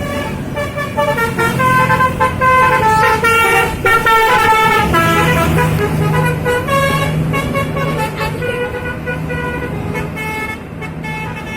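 A bus's 'telolet' multi-tone horn playing a tune of short notes that step up and down in pitch, over the steady running of the bus engine.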